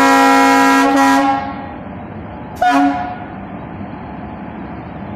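WAGC3 locomotive (a diesel converted to electric) sounding its horn: a long blast that cuts off about a second in, then one short toot about a second and a half later. After the toot comes the steady rumble of the locomotive rolling past.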